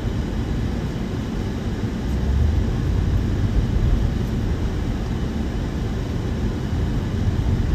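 Steady low vehicle rumble heard from inside a car moving slowly behind a transit bus. It swells a little about two seconds in.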